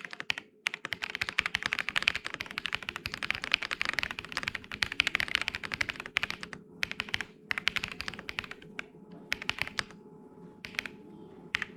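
Typing on a Weikav WK75 mechanical keyboard fitted with Moon White switches: a fast, continuous run of keystrokes for about six and a half seconds, then slower, scattered key presses.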